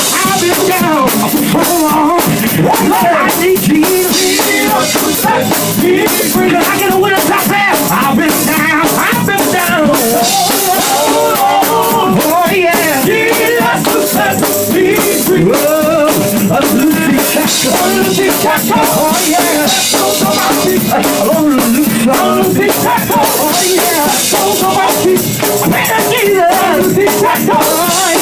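A male gospel vocal group singing live over a drum kit.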